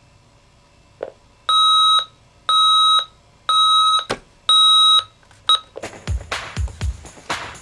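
Electronic alarm beeping: four steady, loud beeps about a second apart, then one short beep. Upbeat music with a heavy beat starts about six seconds in.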